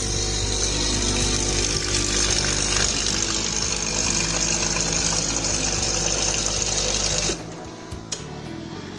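Espresso machine's water pump running steadily, pushing water or descaling solution through the machine, then stopping abruptly about seven seconds in.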